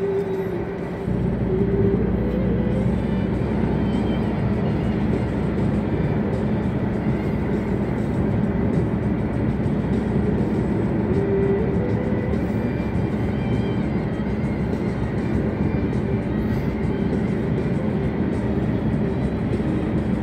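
Steady road and engine noise inside a moving car, growing louder about a second in, with music playing over it.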